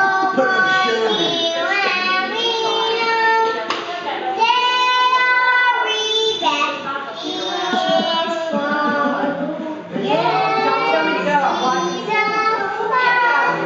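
A young girl singing, with notes played on an electronic keyboard.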